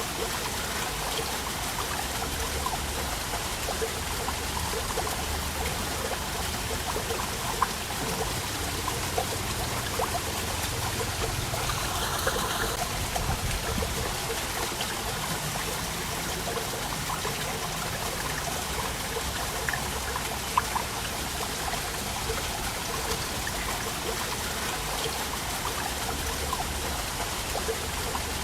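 Waterfall: water falling and splashing steadily, with small irregular splashes and a couple of sharper splashes.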